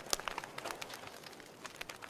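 Fire crackling: irregular sharp pops and snaps over a soft hiss, thickest in the first half second and again near the end.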